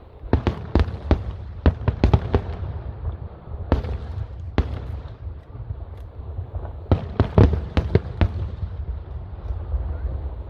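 Fireworks show: aerial shells bursting in quick clusters of sharp bangs, with a steady low rumble from the continuing barrage between them.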